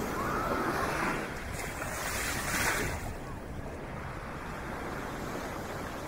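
Small ocean waves breaking and washing up the sand in a steady rush, with one louder surge of water about two seconds in.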